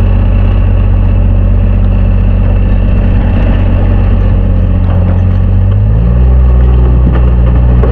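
An engine running steadily; about six seconds in its note changes and gets a little louder.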